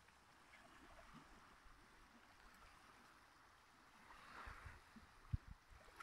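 Near silence: faint lake water lapping against the rock shore, with a soft swell of wash about four and a half seconds in. A short low thump on the microphone comes just after, the loudest sound.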